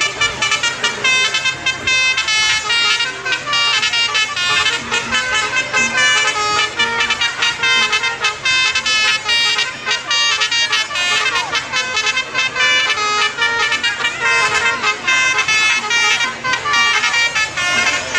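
Telolet musical horns playing a quick, continuous melody of short tooting notes, several pitches sounding at once.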